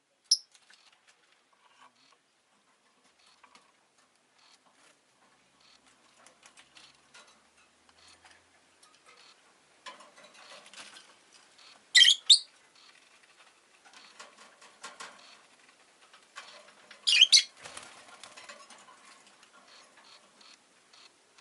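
Rosy-faced lovebird giving short, loud, shrill calls: a brief one just after the start, then one about halfway through and another about two-thirds through. Quiet scratching and rustling sounds fill the gaps between the calls.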